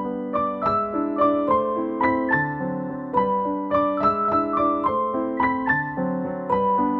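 Background piano music: a steady run of single notes, about two or three a second.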